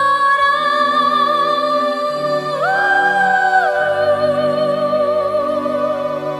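Music: a woman singing long, high held notes with vibrato, leaping up to a higher note about two and a half seconds in and falling back a second later, over a low sustained accompaniment.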